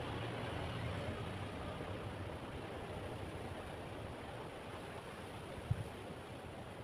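A small hand tool scraping and smoothing wet cement along a moulded corbel profile, a soft steady rasp, with one dull knock near the end.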